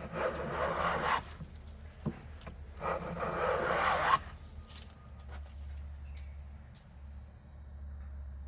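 Hand plane taking two long strokes across a wooden board, each lasting about a second and a half, the second starting about three seconds in, as a high side of the board is planed down level.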